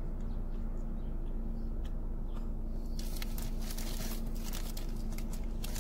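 Eating sounds: scattered small chewing clicks, then a couple of seconds of paper food wrapper rustling and crinkling about three seconds in, over a steady low hum inside the car.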